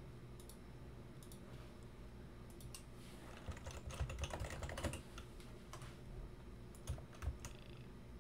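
Typing on a computer keyboard to enter a password: scattered keystrokes, with a quick run of them about halfway through and a few more near the end.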